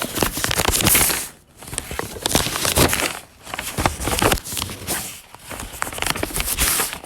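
Paper crumpling and rustling in several crackling bursts with short pauses between them, a foley stand-in for a character sliding through leaves.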